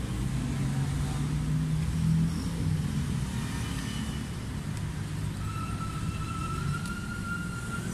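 Road traffic: the low rumble of a passing motor vehicle's engine, loudest about two seconds in. A thin, steady high tone comes in about five seconds later and holds for a couple of seconds.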